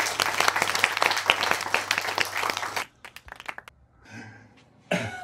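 Audience applause: dense clapping from many hands that cuts off abruptly about three seconds in. A few scattered claps follow, then a soft thump near the end.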